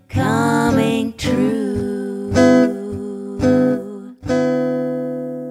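Song with a voice singing over strummed acoustic guitar, ending on a last strummed chord about four seconds in that rings out and fades.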